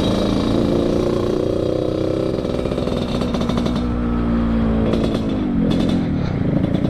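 Yamaha RX-King's two-stroke single-cylinder engine, fitted with an under-slung 'kolong' expansion-chamber exhaust set up for the raspy Medan-style 'ngorok' note, under way on the road. The revs rise over the first two seconds, hold, then fall off about five seconds in.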